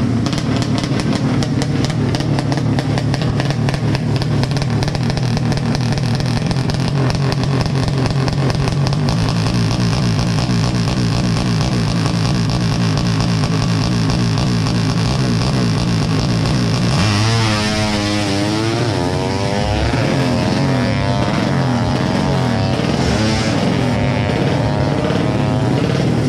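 Four-stroke underbone drag bike with a horizontal 'sleep engine' of up to 200 cc, held at high revs on the start line. About seventeen seconds in it launches and accelerates away, the pitch climbing and dropping back at each upshift.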